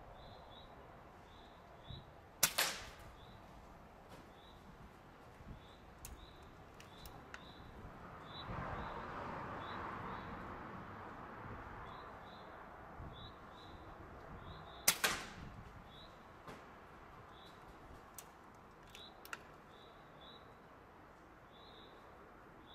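Two shots from an Air Arms S510 Extra FAC precharged air rifle, about twelve seconds apart, each a sharp crack with a short tail.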